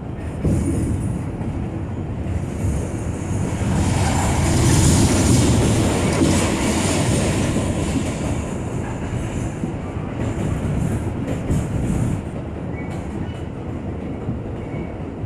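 New York City subway train running, heard from inside the car: a steady rumble with wheel clatter on the rails, loudest about five seconds in and then easing off, with brief high wheel squeals a few seconds before the end.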